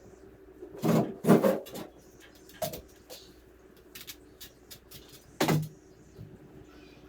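Knocks and clattering thumps of objects being handled and set down: a cluster about a second in, another near three seconds and a heavier one at about five and a half seconds, over a faint steady hum.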